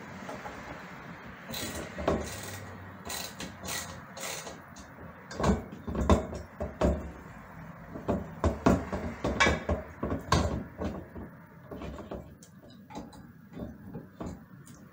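Metal ceiling light fixture knocking, clicking and scraping against its mounting bracket and screws as it is pushed and worked into place with a screwdriver. The clicks and knocks come irregularly, with a cluster of louder bumps in the middle.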